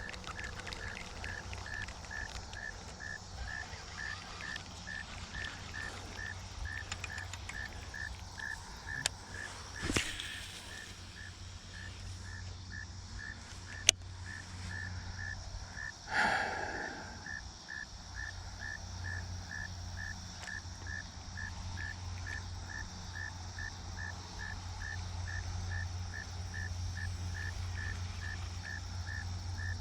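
A cricket chirping steadily at about two chirps a second, over a low steady hum. There are a couple of brief louder noises about ten and sixteen seconds in.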